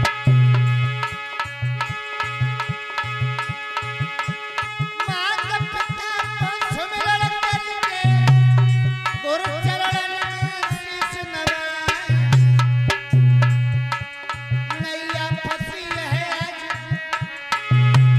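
Instrumental interlude of Alha folk music: hand drums beating a quick rhythm under sustained chord tones, with a wavering melody line entering about five seconds in and again near the end.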